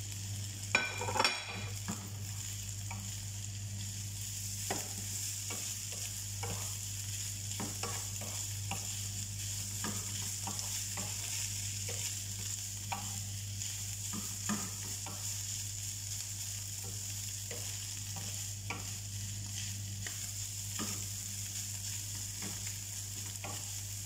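Shredded chicken breast sautéing in a frying pan: a steady sizzle, with a wooden spatula scraping and tapping the pan as the chicken is stirred. There is a brief ringing clatter about a second in, all over a steady low hum.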